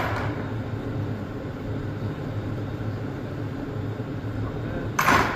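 Steady low workshop hum, broken near the end by one short, loud burst of noise from a shop tool, about a third of a second long.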